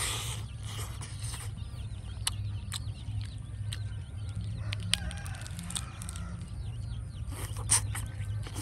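Chickens clucking now and then, over a steady low rumble with scattered sharp clicks.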